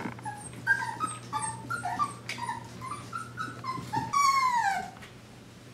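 Five-week-old mini Bernedoodle puppy whimpering: a rapid string of short, high whimpers, then one longer whine that falls in pitch, the loudest, about four seconds in.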